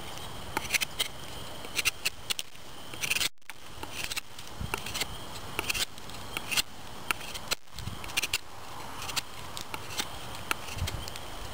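Scandi-ground carbon steel knife blade shaving and carving wood in short, irregular scraping strokes, a few a second.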